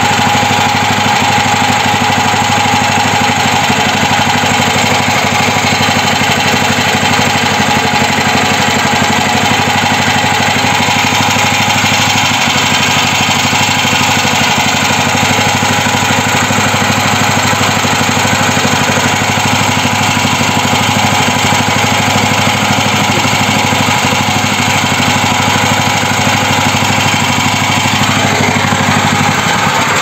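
Petrol engine of a homemade mini tractor idling steadily, with an even fast firing pulse.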